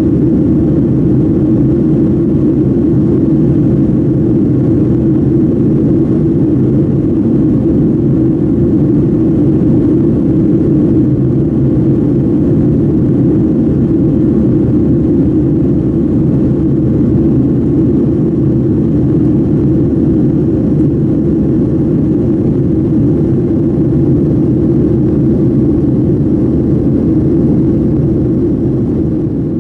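Steady jet airliner cabin noise heard from a window seat over the wing: the even drone of the engines and rushing air, fading out near the end.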